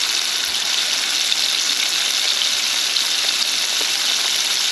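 Shrimp coated in a starch and spice mix deep-frying in hot oil on high heat, a steady sizzle of bubbling oil.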